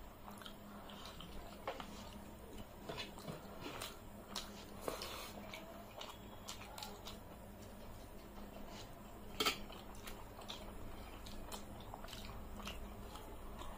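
Quiet eating sounds: fingers mixing and squeezing rice and curry on steel plates, with wet squishing, chewing and many small scattered clicks. One louder click about nine and a half seconds in.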